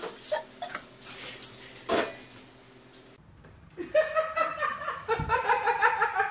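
A person laughing in quick, high-pitched bursts, starting about four seconds in, after a few brief faint sounds.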